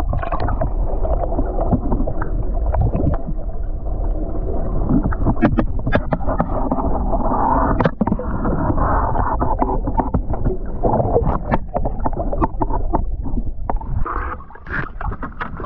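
Boat on open water: a steady rush of water and wind noise, with many sharp clicks and knocks scattered through it.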